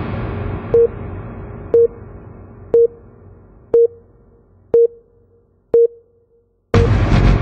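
Electronic intro music: a short beep with a click about once a second over a long fading rumble, then a new loud hit near the end that starts the next part of the theme.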